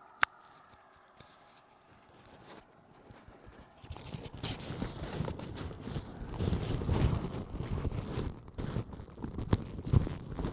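Muffled rustling and irregular knocking picked up by a DJI Mic 2 transmitter packed inside a foam applicator in a bag, starting about four seconds in after a single sharp click near the start.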